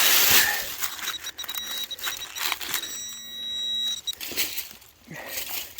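Digging in soil for a metal detector target: scraping and crunching, with a metal detector's steady electronic tone sounding for a few seconds in the middle.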